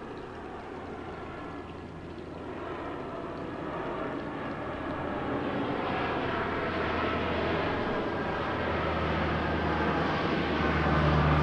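Large propeller airplane flying low overhead, its engine drone growing steadily louder as it approaches, with a slowly falling whine.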